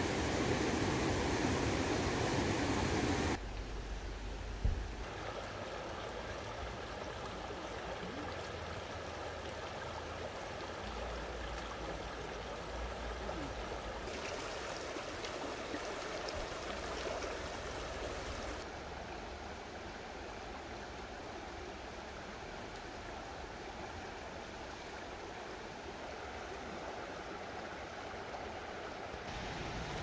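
Mountain stream running with a steady rush of water, louder for the first three seconds and then dropping suddenly to a softer flow, with one brief knock about five seconds in.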